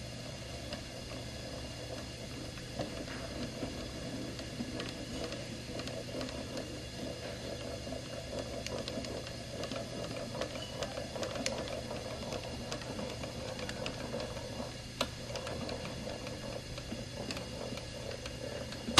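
Steady low hum with scattered light clicks and creaks as a conventional staple gun's handle is slowly squeezed in a handle-force test, ending in one sharp snap as the gun fires.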